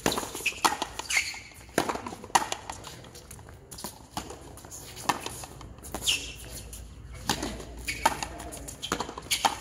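A frontenis rally: the ball struck by tennis-style rackets and slapping off the front wall, a run of sharp knocks every half second to a second and a half.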